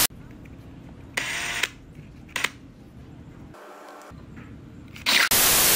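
A loud burst of static-like hiss at the cut into the clip, and another near the end at the next cut. Between them is a quieter low background rumble, with a short rushing noise about a second in and a single sharp click a little later.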